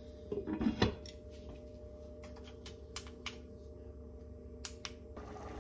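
Lid of a red enameled Dutch oven set down onto the pot with a clank just under a second in, followed by a few faint light clicks over a low steady hum.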